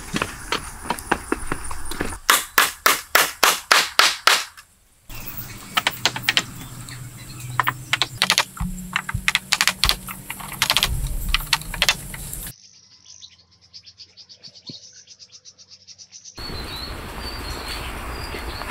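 Sharp wooden knocks and clatters from work with poles and sticks: a fast regular run of about four strikes a second, then scattered knocks. Birds chirp in the forest behind, and the sound changes abruptly several times.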